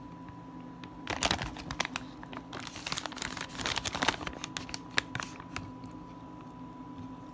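Plastic turkey bacon package crinkling in irregular bursts as a hand reaches in and pulls out slices, with a longer run of crinkling in the middle.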